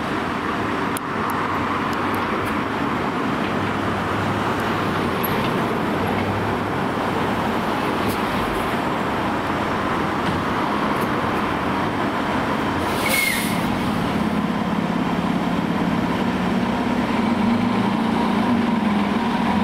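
Fire engine's diesel engine running steadily in the firehouse bay. About 13 seconds in there is a short hiss of air from its air brakes, and a deeper steady hum comes in after it.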